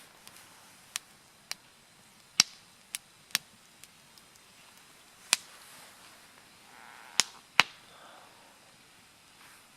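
Wood fire crackling: sharp, irregular pops over a quiet background, with two of the loudest near the middle and near the end.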